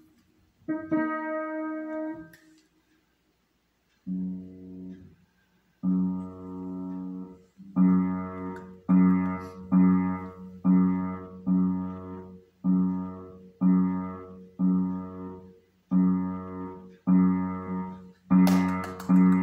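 Upright piano played by a small child: the same low cluster of keys struck over and over, each chord ringing and dying away. After a short pause a few seconds in, the strikes come about once a second, with sharper clicks mixed in near the end.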